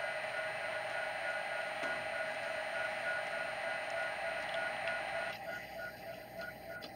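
Model diesel locomotive running along the layout track: a steady electric-motor whir and wheel noise with a faint regular pulsing.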